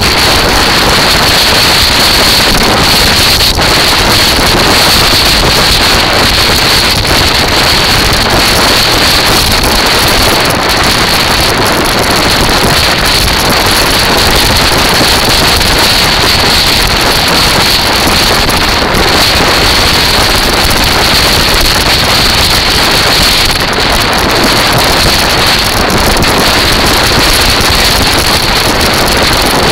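Loud, steady wind rush on the microphone of a camera mounted on a moving kite buggy, mixed with the rumble of its wheels rolling over the beach, with a constant high hiss on top.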